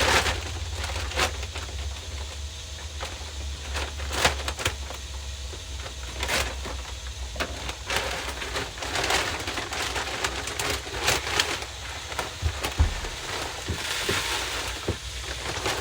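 Dry chicken feed being poured into a plastic bucket feeder: a rush of falling grain with many scattered clicks and knocks, thickest in the second half.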